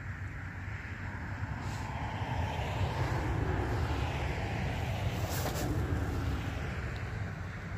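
A car driving past on the road, its sound building about a second in, loudest around the middle and fading near the end, over a steady low rumble.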